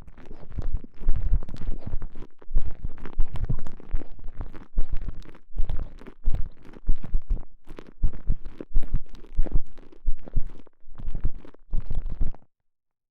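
A stretchy TENGA Egg sleeve being squeezed and rubbed around a microphone inside it, giving muffled, low squelching pulses about one and a half a second. The pulses stop abruptly near the end.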